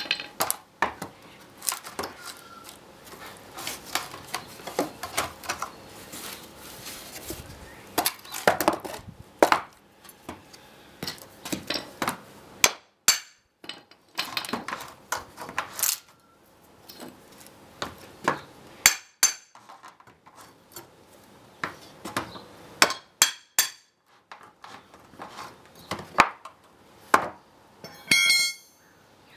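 Steel gooseneck crowbar prising the base boards and spacer blocks off a wooden EPAL pallet: a long series of sharp knocks, cracks and metallic clinks of steel on wood and nails. Near the end, a brief metallic ringing.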